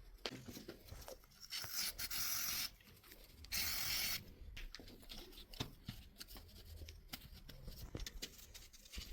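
Small clicks, taps and handling noises of starter motor parts being worked on by hand, with two bursts of hiss, the first about a second and a half in and the second about three and a half seconds in.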